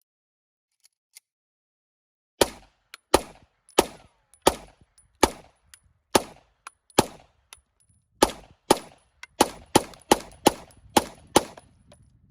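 Semi-automatic gunfire: about fifteen sharp shots fired one after another, first about one every 0.7 seconds and then faster, about two a second, near the end, each with a short echo.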